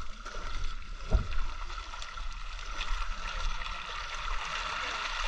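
Shallow river water running steadily over stones, with splashing as a cast net full of fish is hauled out through it. One dull thump about a second in.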